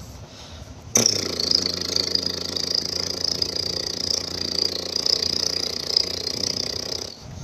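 A person imitating a helicopter with their mouth: one sustained, steady take starting about a second in and stopping shortly before the end.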